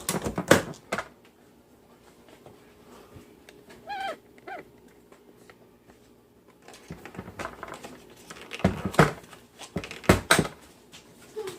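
Clicks and knocks of a touchless trash can's plastic battery compartment and its batteries being handled, in a cluster at the start and a longer run in the second half. Two short squeaky chirps come about four seconds in.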